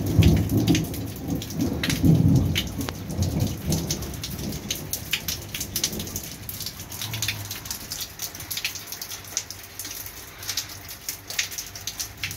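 Thunder rumbling through the first few seconds and dying away by about four seconds in, over steady rain with many separate drops striking close by.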